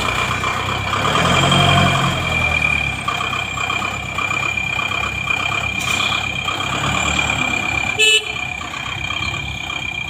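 JCB backhoe loader's diesel engine running just after start-up, louder in the first few seconds, with a steady high-pitched whine over it. A short horn toot sounds about eight seconds in.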